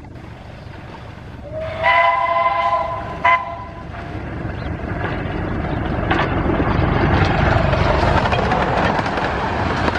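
Miniature steam locomotive's whistle blown twice, a long blast of about a second and a half and then a short toot, followed by the rising rumble of the train running at speed as it approaches.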